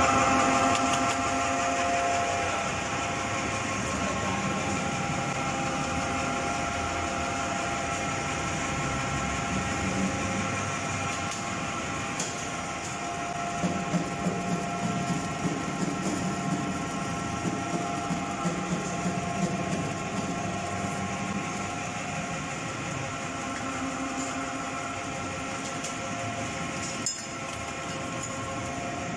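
Squirrel-cage ginger crusher machine running steadily as it grinds fresh ginger into pulp: a continuous mechanical hum with several steady tones over a rushing noise. Irregular rattling peaks come and go through the middle.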